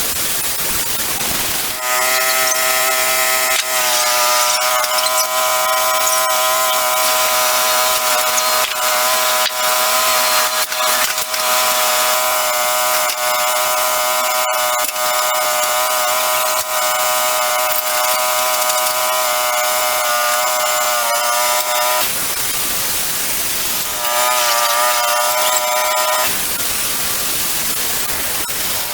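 Wood-Mizer band sawmill running and cutting through a log, a steady high-pitched whine over a hiss. The whine drops out twice near the end, leaving only the hiss.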